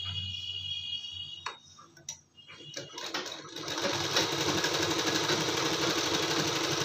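Sewing machine: a few clicks as the fabric is set under the foot, then about three seconds in the machine starts running at a steady, fast stitch, sewing a seam through the blouse fabric and its lining.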